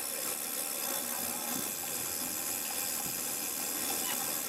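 Steady hiss of wind and rushing sea water, with no distinct event standing out.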